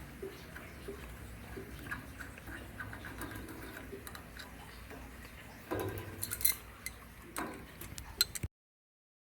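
Light clicks and clinks of metal tools and parts being handled, with a few louder knocks about six and seven and a half seconds in, then the sound cuts out abruptly.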